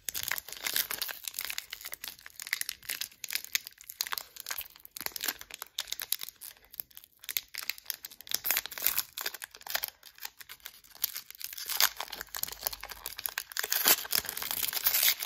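A trading-card pack wrapper being torn open and crinkled by hand: a long, irregular run of crackling and tearing, loudest near the end. The pack is rough to open.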